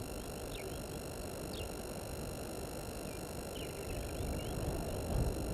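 Outdoor ambience: steady low rumbling background noise with faint, short bird chirps a few times, including a quick run of notes a little past halfway, over a faint steady electronic whine.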